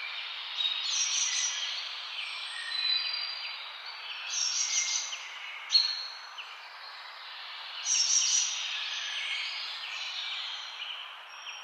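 Birds chirping and calling over a steady hiss, with many short high chirps and thin whistles that swell and fade, louder in patches that start abruptly.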